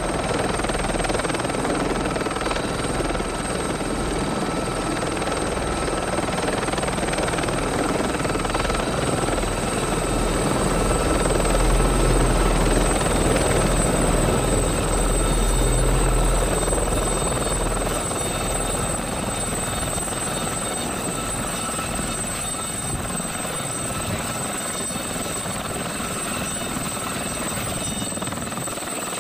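Aérospatiale Gazelle helicopter, the Blue Thunder machine, running with rotor noise under a steady high turbine whine. It grows louder about a third of the way in, then slowly eases off.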